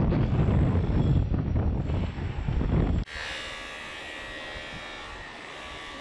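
Gusting wind rumbling on the microphone. It cuts off abruptly about three seconds in, leaving a much quieter, steady outdoor background with a faint hum.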